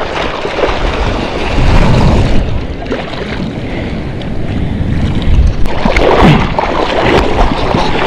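Sea water sloshing and splashing around a surfboard and a camera held at the water's surface, with wind buffeting the microphone. The sound swells twice, about two seconds in and again a little past the middle.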